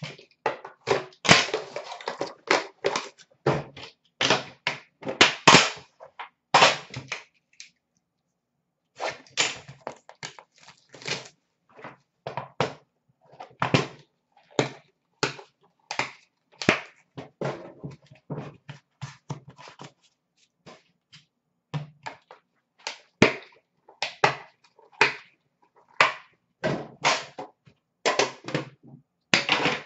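Irregular taps, clicks and short scrapes from a metal Upper Deck The Cup hockey card tin and its lid being opened and handled, with two brief pauses.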